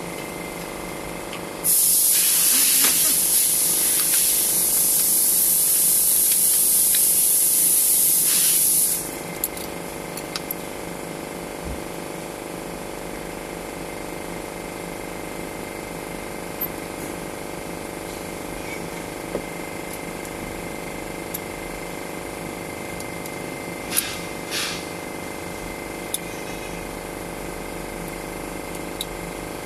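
A pressurised spray hissing steadily for about seven seconds, starting a couple of seconds in and cutting off sharply; afterwards only a low steady background with a few light clicks.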